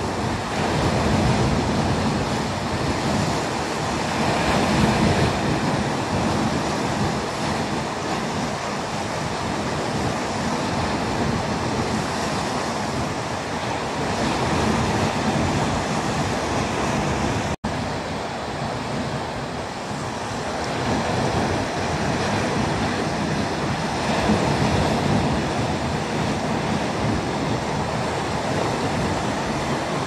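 Small waves of a calm sea washing in: a steady hiss of surf that swells and eases every few seconds, with some wind on the microphone. The sound drops out for an instant a little past halfway.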